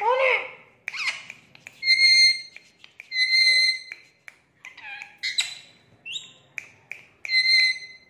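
Indian ringneck parakeet calling and talking: a short speech-like phrase, then several held whistled notes, about three of them, with short rising and falling squeaks and squawks between.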